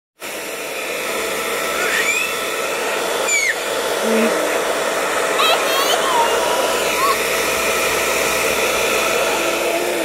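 A hair dryer running steadily, blowing air with a constant motor whine. A child's high voice rises briefly over it a few times.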